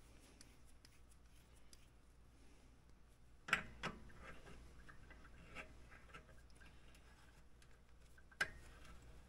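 Faint handling of small metal hand tools and parts on the engine: light clicks and scraping, with two sharp metallic clicks, one a few seconds in and one near the end.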